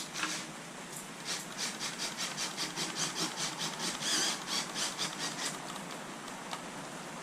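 Quick repeated rasping strokes, about three a second, starting about a second in and fading out after about five seconds.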